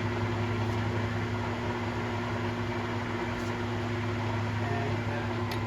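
Lehigh 20x60 engine lathe running with its longitudinal power feed engaged, a steady mechanical hum from the motor and gear train with a few unchanging low tones.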